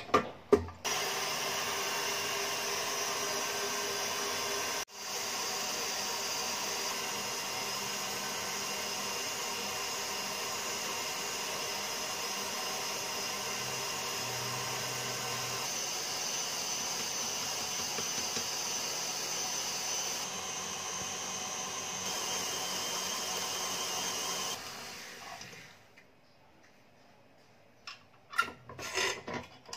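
KitchenAid stand mixer's motor running steadily with its wire whisk beating egg whites into meringue. The sound breaks off briefly about five seconds in, then winds down with several seconds left, followed by a few light clicks.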